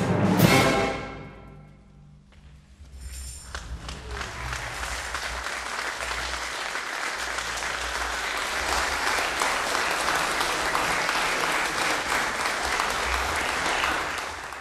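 A wind band's final chord, with heavy percussion strokes, rings out and dies away over about two seconds. After a short hush the audience applauds, the clapping swelling and then holding steady.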